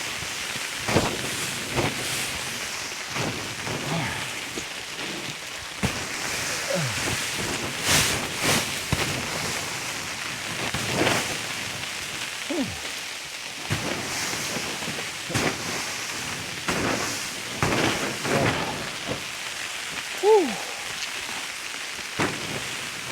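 A broom sweeping and knocking sleet, ice and snow off a sagging covered structure, in irregular scrapes and knocks. Sleet and freezing rain patter steadily throughout.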